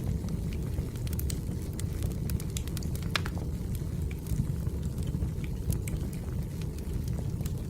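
Wood fire burning, with a steady low rumble and frequent irregular crackles and pops, one louder pop about three seconds in.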